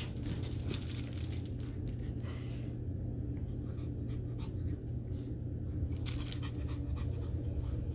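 A Morkie (Maltese–Yorkshire terrier cross) puppy panting quickly, over a steady low hum.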